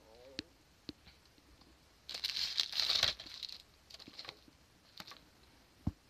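Close-up handling noise: a few light clicks and knocks, then about a second and a half of crinkling paper starting about two seconds in, and a couple of soft thumps near the end.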